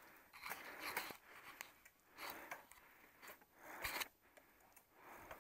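Mountain bike rolling over a dirt trail covered in dry leaves: irregular scraping and crunching of the tyres, with sharp knocks from the bike jolting over bumps about a second in and again near four seconds.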